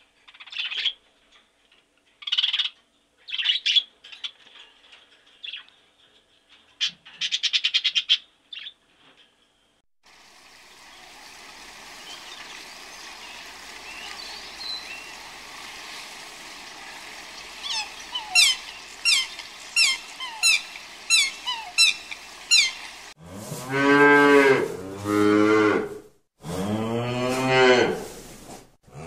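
Cattle mooing: several long, loud moos in the last six seconds. Before them come a series of short high bird calls, then a steady hiss with a run of quick falling chirps.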